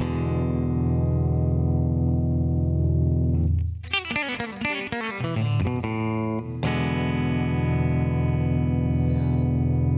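Electric guitar played through a BOSS BR-900's COSM compressed-guitar patch: a chord rings out for about three and a half seconds, a quick run of picked notes follows, then another chord is struck and held.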